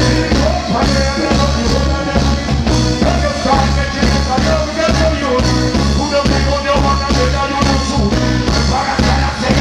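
Live reggae band playing loud through a concert PA, with a pulsing bass line under a male vocalist singing into the microphone.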